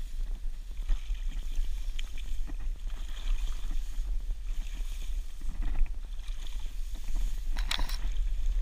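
Steady low rumble of wind and handling noise on a body-worn GoPro's microphone, with grass and reeds rustling and brushing past while walking through them.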